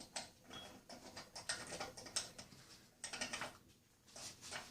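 Light metallic clicks and clatter of small transmission parts being handled and fitted together: a 1994 Polaris 400 4x4 transmission's shift fork and gears. The clicks come in several short clusters.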